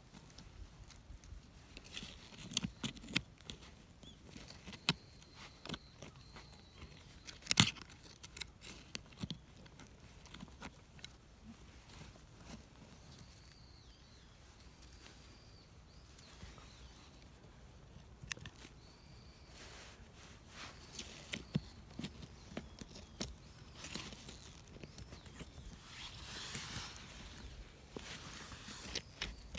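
Hand digging in soil and small stones with a thin metal hand tool: scattered scratches, scrapes and small clicks, with one sharper knock about seven and a half seconds in and a longer stretch of scraping near the end.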